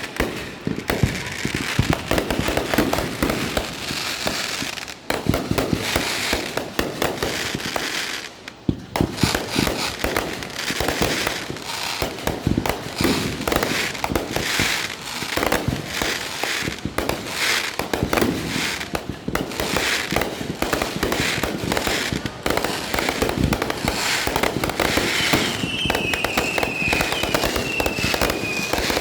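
Fireworks going off: a dense, continuous barrage of firecracker bangs and crackle. Near the end, a high whistle slides down in pitch over the bangs.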